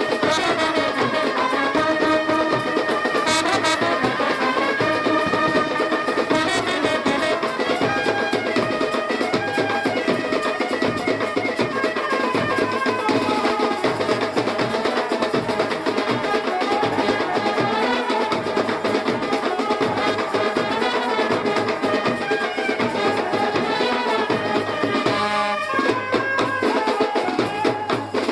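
Music with a steady drum beat and brass.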